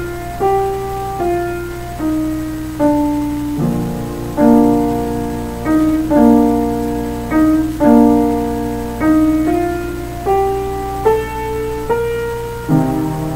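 Upright piano playing a slow, quiet solo piece: a melody over chords, with notes struck every half second to a second and each one left to ring and fade.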